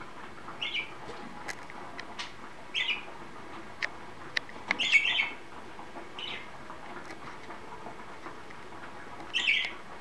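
Pet budgerigars giving short chirping calls, about five of them with a cluster in the middle, with scattered light clicks and ticks between them.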